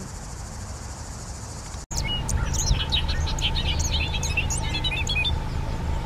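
A steady insect-like hiss over a grass field, then, after a cut about two seconds in, a bobolink singing: a rapid, bubbling jumble of high chirps and gliding notes for about three seconds over a low steady rumble.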